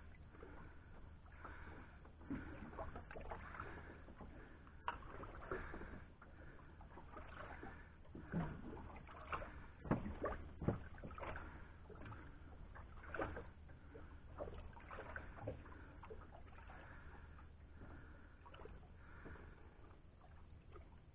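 Small ripples lapping and slapping against the hull of a drifting boat: irregular soft splashes, a few sharper slaps around ten seconds in, over a steady low hum.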